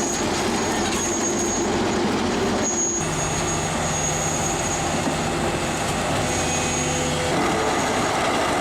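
Heavy forestry machinery running under load: steady engine and mechanical noise with a thin high whine, changing abruptly about three and seven seconds in.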